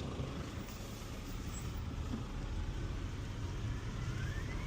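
Holden VY Commodore engine running at low revs, a steady low rumble heard from inside the cabin. Near the end a faint thin whistle rises steadily in pitch.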